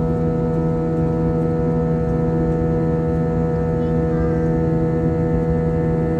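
Steady drone of an airliner's jet engines heard inside the cabin in flight: a low rumble with several constant humming tones over it.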